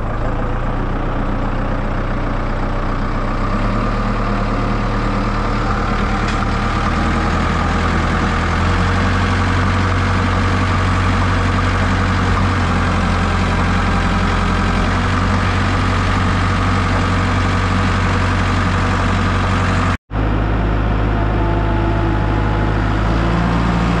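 Case 686G telehandler's diesel engine running steadily as the machine drives, heard from the operator's seat, its pitch shifting a few times. The sound cuts out for an instant about twenty seconds in.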